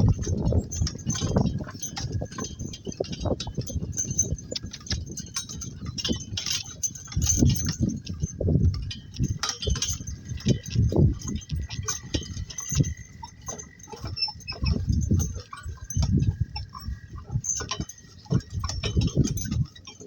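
Two-donkey cart rolling along: continuous irregular thumping and rattling from the donkeys' hooves and the cart.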